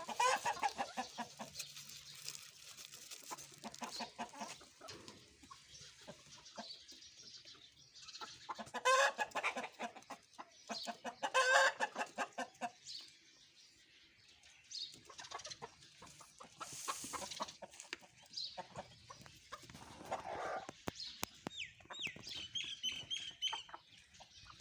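Hens clucking in bursts, with a few louder calls about a third and halfway through; thin high bird chirps near the end.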